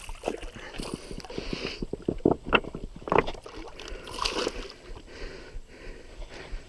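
Irregular clicks and knocks with water sloshing and splashing as a hooked largemouth bass is fought and landed.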